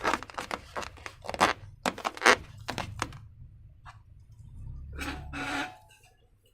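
Hands handling crinkly plastic: a quick run of sharp crackles and tearing over the first three seconds, then two longer rubbing sounds with a faint squeak a little after the middle.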